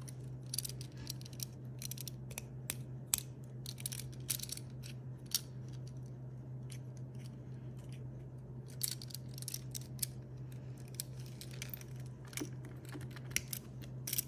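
Plastic Lego Technic pieces clicking and rattling as they are handled and fitted together, in quick irregular runs of small clicks with a lull of a few seconds midway, over a steady low hum.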